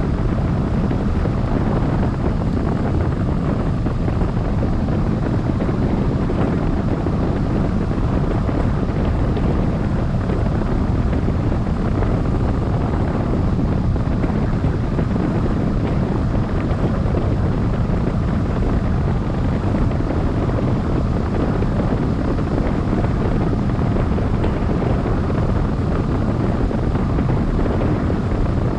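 Steady wind rushing over the microphone of a camera mounted on a tandem hang glider's wing in flight.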